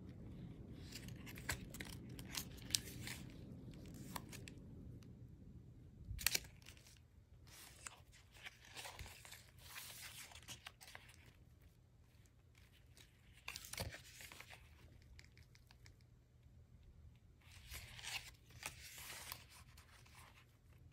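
Thick paper-and-tag pages of a handmade junk journal being turned and handled. The paper and attached ribbons and fabric scraps crinkle and rustle in about five separate bursts, with a soft knock about six seconds in and another near fourteen seconds.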